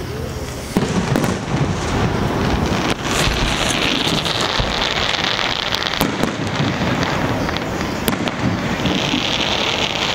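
Aerial fireworks shells bursting, with a sharp bang every two or three seconds. Two stretches of dense crackling come from crackling stars, one in the middle and one near the end.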